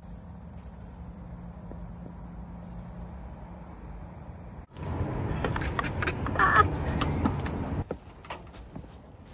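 Crickets trilling in a steady, high-pitched chorus. About halfway through, a few seconds of louder rustling and knocking come in over it and then stop.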